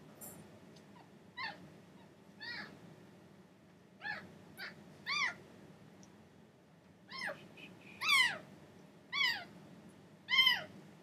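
Newborn kitten mewing as it is bottle-fed: about nine short, high-pitched cries, each rising then falling in pitch, louder toward the end.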